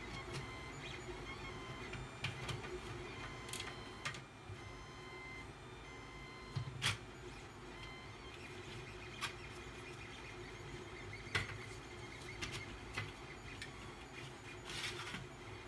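A handful of light clicks and taps as 3D-printed plastic telescope rings and metal rods are handled and fitted together, over a faint steady hum.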